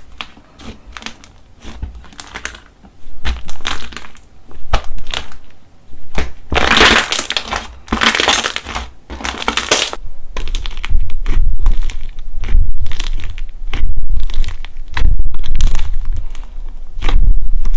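Slime being squished and pressed by hand: a run of sharp popping and crackling clicks, with three longer squelching stretches near the middle. From about halfway on, low thuds come in under the clicks.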